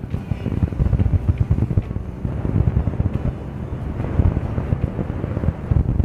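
Wind buffeting the microphone over the rumble of a vehicle driving along a dirt road, a dense low fluctuating noise.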